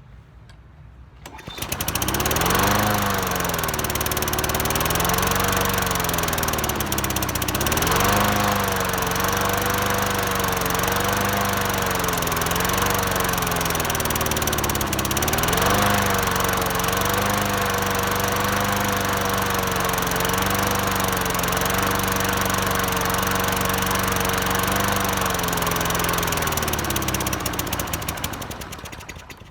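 Walk-behind lawn mower's small engine starting up about a second and a half in, running unevenly with its speed dipping and recovering several times, then slowing and dying near the end. The owner puts the stalling down to a carburettor that needs cleaning.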